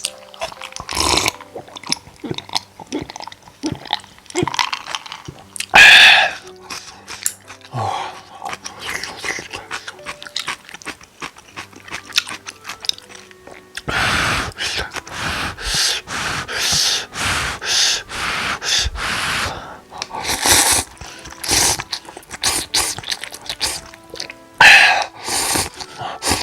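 Close-up eating sounds: cup noodles slurped and chewed in irregular bursts, the loudest slurps about six seconds in and near the end, a busy run of slurping and chewing in the second half, over quiet background music.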